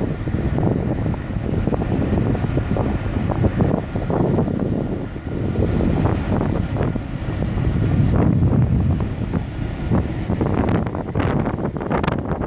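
Wind buffeting the microphone, a gusty low rumble that rises and falls, with a few sharp clicks near the end.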